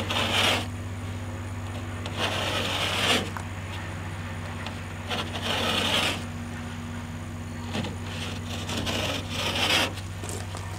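Utility knife scoring the paper face of a sheet of purple drywall: four scratching strokes, each a second or less, spaced a few seconds apart.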